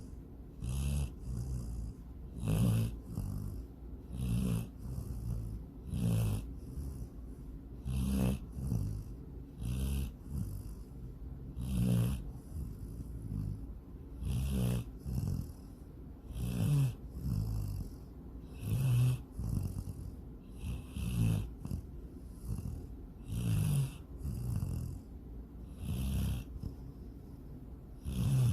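A dog snoring in its sleep: a low rattling snore with a breathy hiss on each breath, in a regular rhythm of about one every two seconds.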